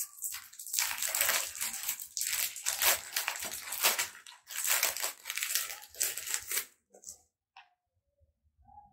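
Foil sachet of a green tea dip bag crinkling as it is torn open and unwrapped by hand, a dense crackle that stops about seven seconds in.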